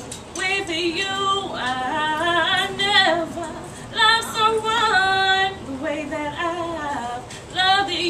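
A woman singing a cappella in an R&B style: long wordless runs that slide up and down, with vibrato on held notes, in about five phrases broken by short breaths.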